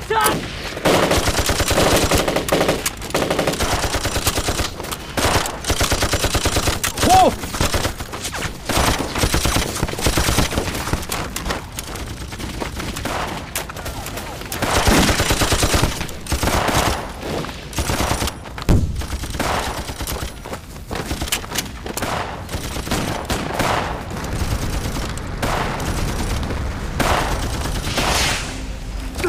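Battle gunfire: rapid, overlapping machine-gun and rifle fire with shots packed densely together, running on without a break.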